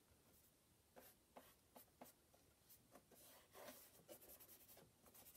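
Faint scratching of a paintbrush's bristles drawing thin lines of paint on a gessoed canvas, a few short strokes with pauses between them, coming more often from about halfway through.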